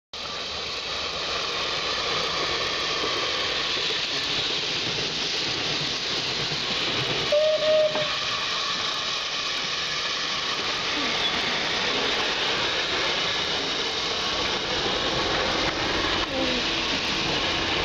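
SBB E 3/3 'Tigerli' 0-6-0 steam tank locomotive hissing steadily, with steam escaping from around its cylinders as it rolls slowly past. A short, loud tone sounds about seven seconds in.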